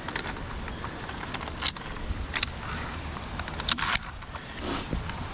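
Scattered sharp clicks and clinks of metal climbing gear, a few of them loud, over a steady low rumble.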